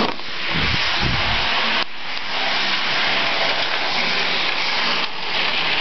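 Model freight train running on its track: a steady whirring hiss from the locomotive's electric motor and the wheels on the rails, dipping briefly about two seconds and five seconds in.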